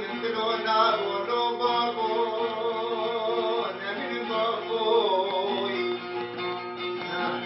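A man singing with a plucked string instrument, his voice sliding and wavering between notes over a steady held tone.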